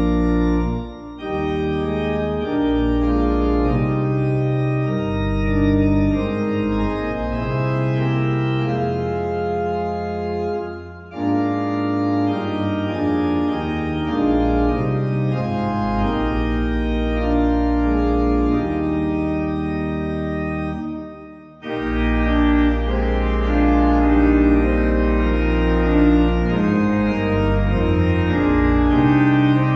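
Organ playing a hymn tune in sustained chords, phrase by phrase, with short breaks between phrases about a second in, at about eleven seconds and at about twenty-one seconds.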